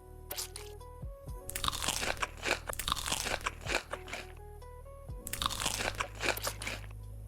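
Crunchy chewing of crisp food close to the microphone, in two bouts of dense crackling, over steady background music.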